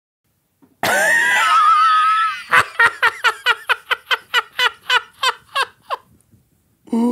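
A man laughing hard: first a long, high, wavering squeal, then a run of short ha's, about four a second, for some three seconds.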